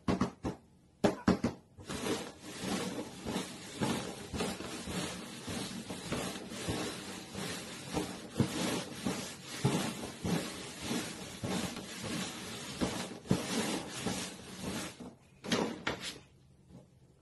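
Paper cups being shuffled across a cardboard box top: a few separate taps, then a long run of dense scraping and tapping as the cups slide and knock on the cardboard, ending with a couple of taps near the end.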